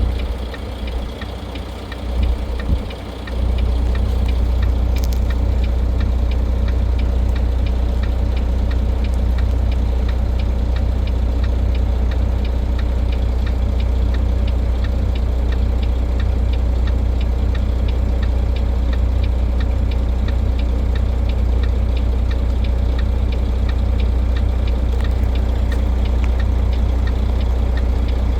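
Vehicle engine idling, a steady low drone that comes up to full level about three seconds in.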